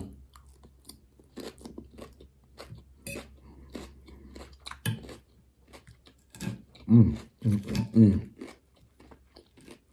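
Close-up chewing of a raw garden salad with red cabbage: a run of crisp, wet crunches as the leaves are bitten and chewed. About two-thirds of the way in, a few short voiced sounds from the eater, the loudest part, break in among the crunches.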